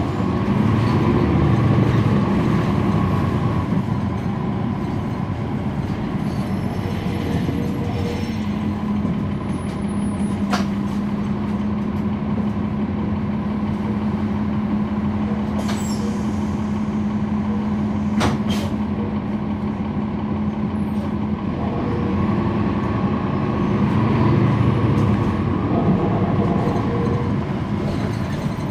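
A 2011 NABI 40-foot transit bus's Cummins ISL9 diesel engine and ZF Ecolife automatic transmission running, heard on board. The engine pulls harder at the start and again near the end, with a steady low hum in between. A few sharp clicks sound in the middle.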